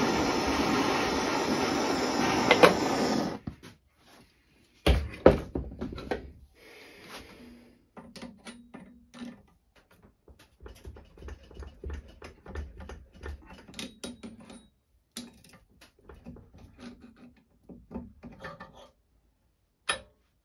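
Handheld gas torch burning with a steady hiss, heating the flywheel boss to break down the Loctite, then shut off about three seconds in. A sharp metallic knock follows, then scattered small clicks and taps as pliers work the cast iron flywheel loose on its arbor in the vise.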